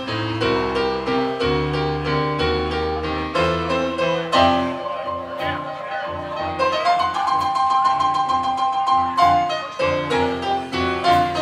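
Live band music led by a Yamaha CP stage piano playing quick runs and chords, with an electric bass line underneath; near the middle some higher notes are held longer.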